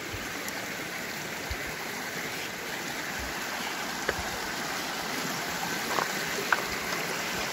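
Shallow creek running over rocks, a steady rushing of water, with a few faint knocks scattered through.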